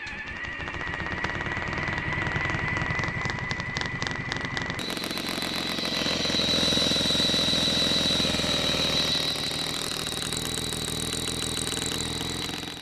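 Airsoft electric guns (AEGs) firing long full-auto strings: a rapid rattle of shots over a steady gearbox and motor whine. About five seconds in the whine jumps sharply higher as a different gun takes over.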